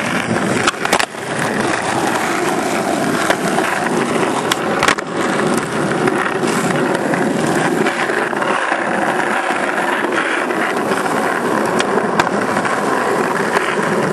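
Skateboard wheels rolling over rough asphalt with a steady, loud rumble. A few sharp clacks break in, about one second in and again near five seconds.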